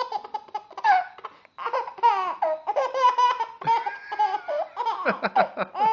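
Baby girl laughing in quick high-pitched bursts of giggles, with a short pause about a second and a half in before the laughter picks up again.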